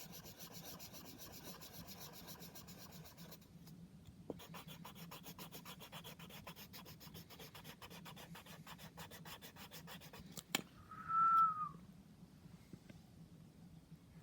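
Colouring on paper with rapid back-and-forth shading strokes, with a short pause about three seconds in. Near the end come a click and then a brief high squeak that falls slightly in pitch, the loudest sound.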